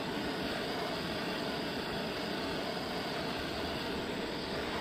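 Gas torch flame hissing steadily as it heats the rim of an alloy wheel for dent straightening.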